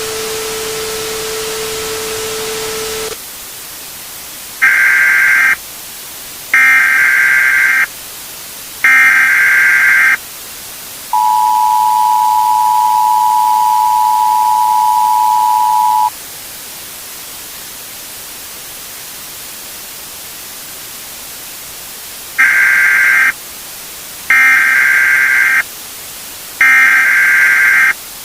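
Emergency Alert System tones: a steady low tone over static hiss cuts off about three seconds in. Three SAME header data bursts follow, about a second each, then the two-tone attention signal held for about five seconds, several seconds of hiss, and three more header bursts near the end.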